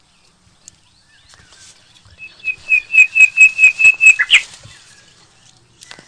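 A bird calling: a quick run of about a dozen short notes at one pitch over two seconds, starting about two seconds in and ending with a falling note.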